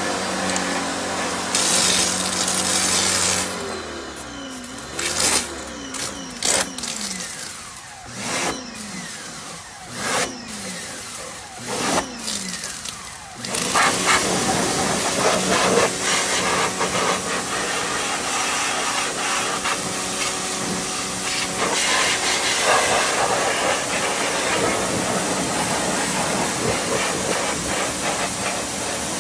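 Pressure washer rinsing soap off a motorcycle. For the first dozen seconds it runs in short stop-start bursts, each ending in a falling whine. From about halfway through it runs steadily, with a continuous hiss of spray.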